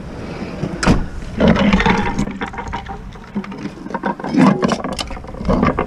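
Knocks and scraping of scrap metal being handled and picked up by a gloved hand, a sharp knock about a second in and several more near the end.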